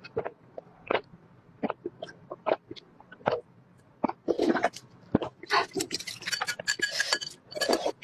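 Close-miked eating sounds: wet chewing and lip smacks in short separate clicks, then, from about four seconds in, loud slurping as sauce is drunk straight from a glass bowl.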